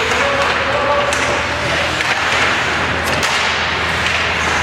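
Ice hockey play in an indoor rink: skates scraping and carving the ice over a steady low rink hum, with several sharp clacks of sticks and puck.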